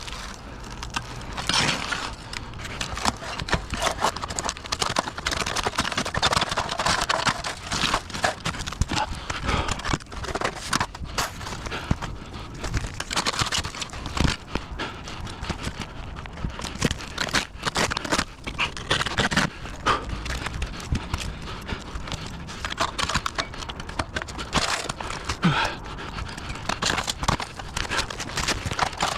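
Steady stream of irregular knocks, taps and scrapes from roofing work, with no steady rhythm or tone.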